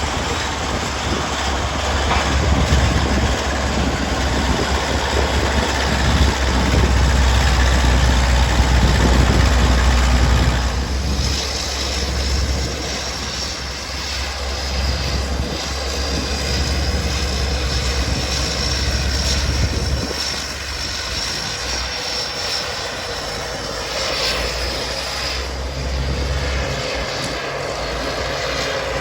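Caterpillar D8 crawler tractor's diesel engine working while pulling a scraper, a heavy low rumble that is loudest for the first ten seconds or so, then eases off.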